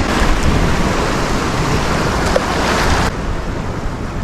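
Sea surf washing over shoreline rocks, a dense hiss over the low rumble of wind buffeting the microphone; the hiss drops away abruptly about three seconds in.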